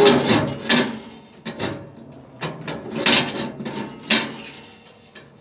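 Metal parts of a gas furnace's burner assembly knocking and rattling as it is handled and pulled at, a string of separate sharp clanks at irregular intervals.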